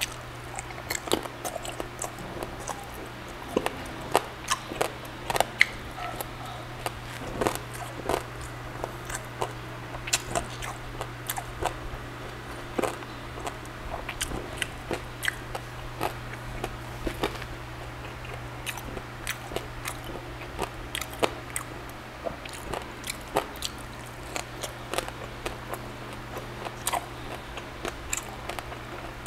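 Close-miked mouth sounds of a person biting and chewing grilled pork belly and rice: many short sharp wet clicks and smacks in irregular succession. A low steady hum runs underneath.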